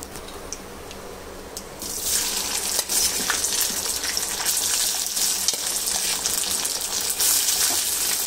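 Hot desi ghee in a pan starts sizzling suddenly about two seconds in as food goes into it, then keeps up a steady crackling fry.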